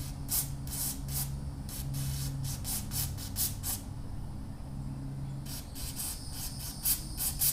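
Short hissing squirts of aerosol carburetor cleaner, many in quick succession in two runs, sprayed into a scooter carburetor's passages.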